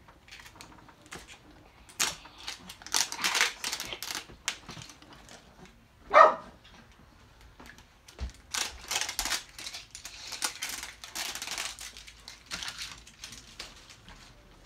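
Plastic wrapping crinkling and crackling in short spells as it is peeled and torn off an LOL Surprise ball. About six seconds in there is one short, loud burst.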